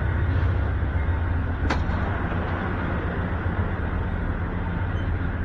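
Steady low rumble of a passenger train running past, with one sharp click about two seconds in.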